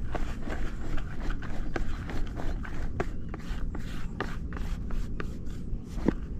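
A string of short, light knocks and rubbing noises at roughly two a second, irregular, over a low steady rumble.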